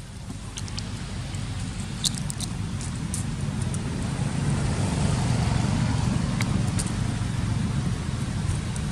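A low, steady rumble that grows louder over the first five seconds or so. Over it come a few faint clicks and smacks from a macaque chewing fruit.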